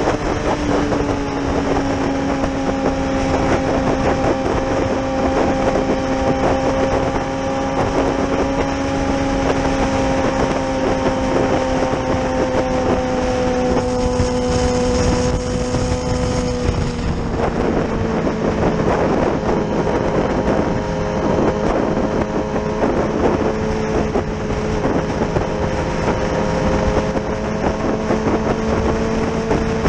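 Yamaha R6 inline-four engine running steadily at cruising revs, with wind rushing over the microphone. Its note sinks slightly, then drops a step about seventeen seconds in.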